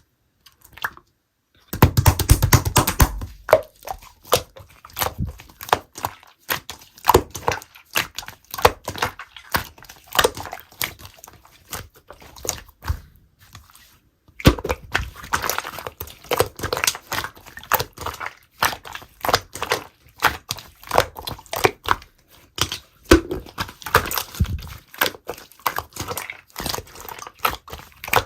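Slime being squished and pressed by hand: a steady run of sticky clicks, pops and crunches, starting about two seconds in and easing briefly about halfway through.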